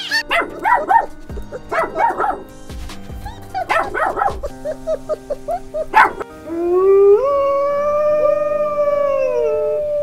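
A canine howling: one long howl that rises, holds for about three seconds and falls away, starting a little after a sharp knock. It is preceded by two bursts of short squealing calls, and background music plays underneath.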